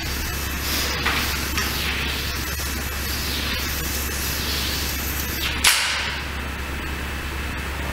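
Chalk swishing against a large black board in sweeping circular strokes, about one stroke a second, ending with one short, sharp scrape, the loudest sound, about six seconds in.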